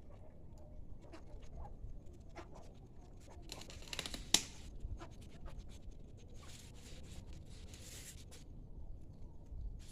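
Dry date-palm fronds being cut away and pulled off the trunk: scratchy rustling and scraping in two stretches, with a sharp snap about four seconds in.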